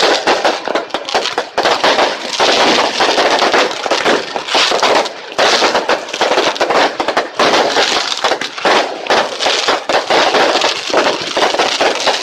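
Fireworks going off in a dense, continuous rattle of crackles and pops, with brief lulls about a second and a half in and again about five seconds in.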